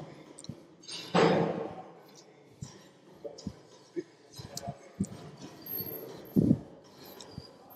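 A man's forceful exhales and grunts while straining through dumbbell curl reps: a loud blown breath about a second in and a shorter grunt a little after six seconds, with faint clicks between.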